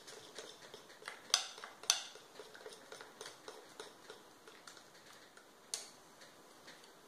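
Metal fork stirring confectioner's sugar into a sticky fondant mixture in a glass bowl, clicking and scraping against the glass, with a few sharper clinks: two close together about a second in and one near the end.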